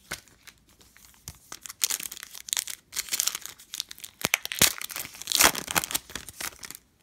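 Foil wrapper of a basketball trading-card pack crinkling and tearing as it is ripped open by hand and the cards are pulled out, loudest in the second half and stopping just before the end.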